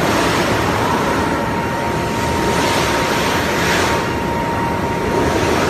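Indoor revolving carpet ski slope running, with snowboards sliding on the moving surface: a loud, steady rushing rumble with a thin high whine.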